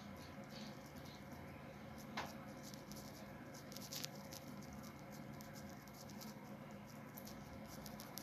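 Chest sounds picked up through a stethoscope during auscultation: faint scratchy rustling and scattered clicks over a steady hum, with sharper clicks about two and four seconds in.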